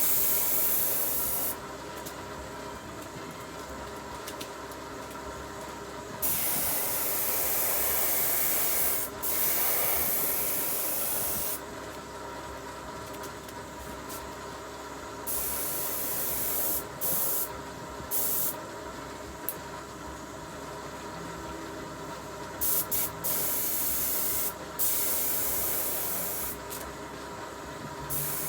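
Power sander working the bare steel bed panel of a 1966 Chevy C10: a loud hiss that comes and goes in bursts of a few seconds, over a steady hum.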